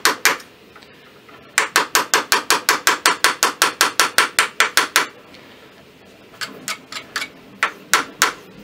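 Light hammer taps on a brass drift, driving a brass front sight sideways into the dovetail of a muzzleloading rifle barrel, a tight fit. A steady run of about five taps a second, a pause, then a few slower, scattered taps near the end.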